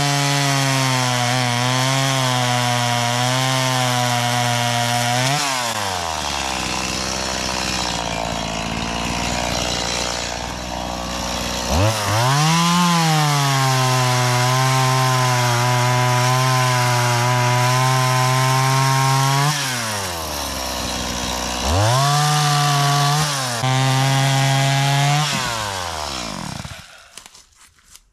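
Gas chainsaw revving into cuts in wood, its pitch dropping and holding under load for several seconds at a time, three times over, with a drop to idle between cuts. Near the end the engine is switched off and winds down to a stop.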